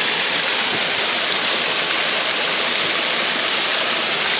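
Small waterfall: a loud, steady rush of falling water.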